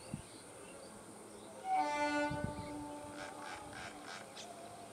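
EMU local train's horn sounding one long blast that starts about two seconds in and then fades away, with birds chirping after it.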